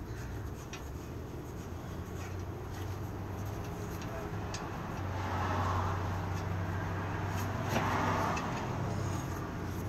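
A vehicle engine running as a steady low hum, swelling twice, about halfway through and again near the end. A few faint clicks of metal nuts and washers being handled.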